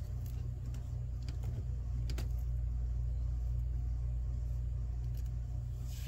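A steady low hum, with a few faint clicks over it, the clearest about two seconds in.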